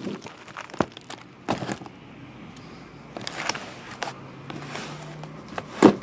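Crinkling plastic and a few sharp knocks as boxes of sports cards are handled, the loudest knock near the end.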